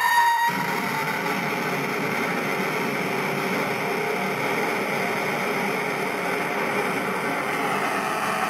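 Small 8-ohm speaker playing the output of a PT2399 delay circuit boosted by an LM386 amplifier. A feedback squeal with one tone rising and another falling cuts out about half a second in, and a steady, harsh noisy hash follows.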